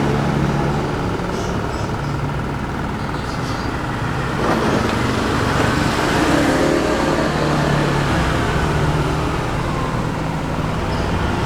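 HF Audio ASW 118A 18-inch subwoofer playing a 25 Hz test tone as a steady low rumble with noise over it. At 25 Hz the subwoofer reproduces the tone only weakly and poorly, below its rated 35 Hz low end.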